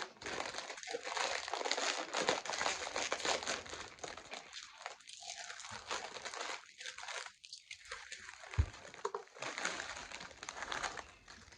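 A food wrapper crinkling and rustling as it is handled close by, with irregular crackles and a sharp tap about two-thirds of the way through.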